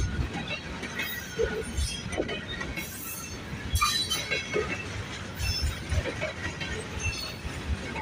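Union Pacific freight train's cars rolling past, their wheels knocking irregularly over the rails, with a few brief squeals.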